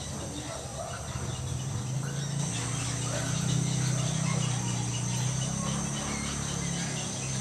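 Steady high-pitched drone of an insect chorus, with a low steady hum beneath it and scattered short calls.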